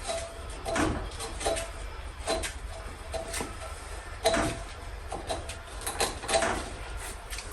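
Irregular clicks and light knocks of tools and small parts being handled while a snow blower's carburetor is taken apart, some with a short metallic ring.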